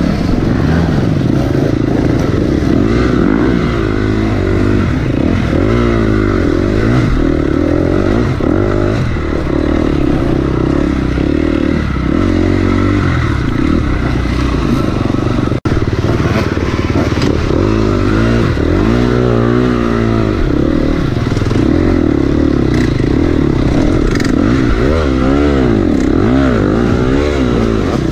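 KTM 250 XCF single-cylinder four-stroke dirt bike engine heard from on the bike, running hard with its pitch rising and falling over and over as the throttle is worked on a trail ride.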